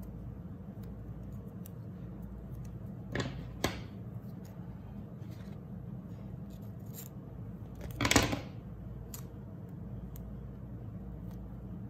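Scissors cutting a strip of washi tape: a couple of short snips about three seconds in and a louder cut about eight seconds in, with faint small clicks of tape handling over a steady low hum.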